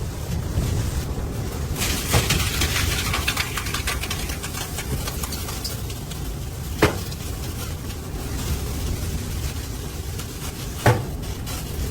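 Wind buffeting the microphone in a steady low rumble, with three sharp knocks about four seconds apart.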